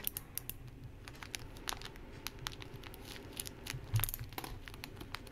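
X-Acto craft knife cutting into a nano blocks package, making faint scratchy ticks and crinkling of the packaging, with a soft thump about four seconds in.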